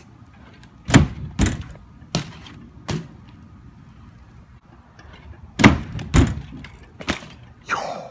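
BMX bike tyres and frame hitting a riding box and the ground: a string of sharp thuds and knocks, some in pairs about half a second apart, like front and rear wheels landing.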